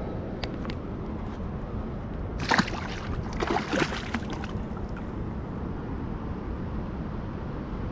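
Shallow river water splashing as a released channel catfish is put back and kicks away, in two bursts about two and a half and three and a half seconds in, over steady low background noise.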